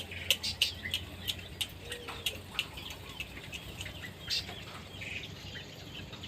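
Small aviary birds giving short chirps and call notes among quick sharp ticks and clicks. The ticks are thick in the first couple of seconds and thin out later, over a faint low hum.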